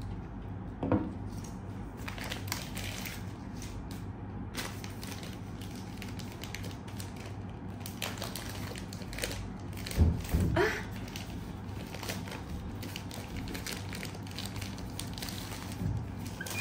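Plastic packaging wrap crinkling and rustling as it is handled and crumpled, in scattered crackles, with louder handling bumps about one second in and about ten seconds in. A faint steady low hum sits underneath.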